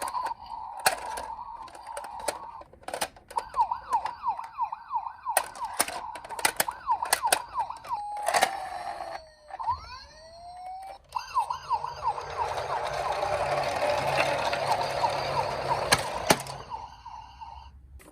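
Small electronic sirens from toy ambulance minicars: a fast warbling yelp and a slower wail that falls and rises, broken by many sharp clicks. A louder rushing noise comes in for the second half.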